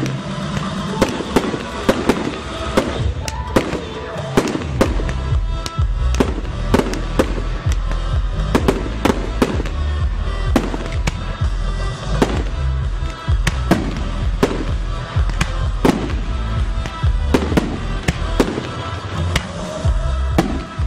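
Aerial firework shells bursting in quick succession, many sharp bangs over music. The music takes on a heavy bass from about four seconds in.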